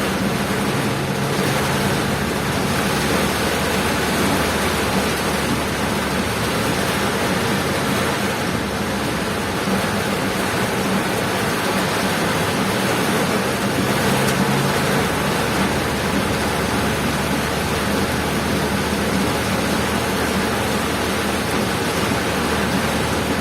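Steady rush of heavy rain and road noise from a moving vehicle, with a low steady engine hum underneath.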